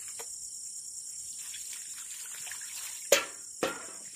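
Water poured from a mug trickling and dribbling over a raw chicken as it is rinsed by hand over a steel bowl. About three seconds in come two sharp knocks, half a second apart, the first the louder.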